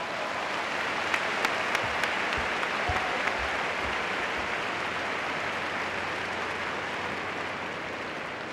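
Large arena crowd applauding a gymnast's finished horizontal bar routine, with a few sharp claps standing out in the first two seconds; the applause eases off slightly near the end.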